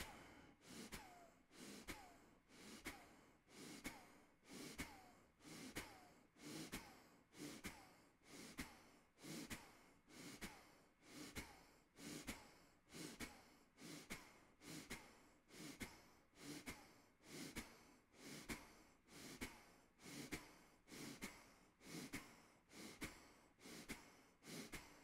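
Faint, rhythmic breaths from a man, a short sharp puff about once a second. Each breath goes with a pulse of the belly drawn in during a deep-abdominal (transversus abdominis) exercise.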